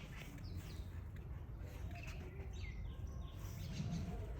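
Small birds chirping: short, quickly falling chirps several times, over a steady low rumble.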